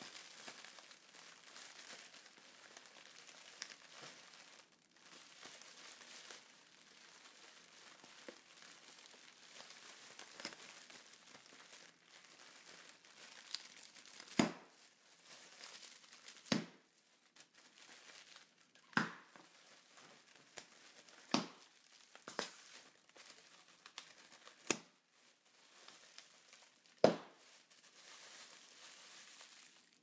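Plastic air-pillow packaging (inflatable air bags) crinkling as it is handled. From about halfway it gives way to a series of sharp pops, about eight in all, as the air pillows are burst, with crinkling between them. The loudest pop comes near the end.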